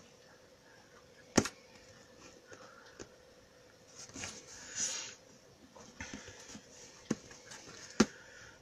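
Handling noise from a phone held close: a few sharp taps and clicks, the loudest about a second and a half in and again near the end, with soft rustling between.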